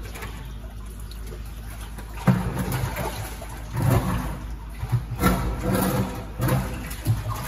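Shallow muddy water splashing and sloshing in irregular bursts as a gloved hand works through it inside a drainage culvert pipe, starting about two seconds in.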